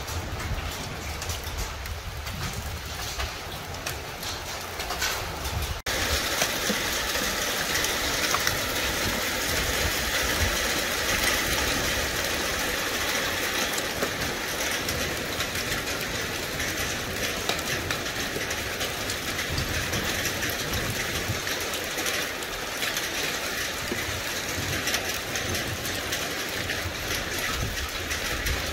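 Hail and rain pelting down, a dense, steady clatter of countless small impacts. About six seconds in it cuts out for an instant and comes back louder and brighter.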